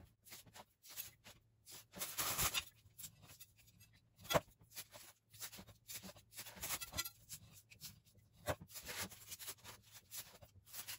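Rustling and light scraping as squares of frozen puff pastry are peeled from their interleaving sheets and set down in a paper-lined pan, with one sharp tap about four seconds in.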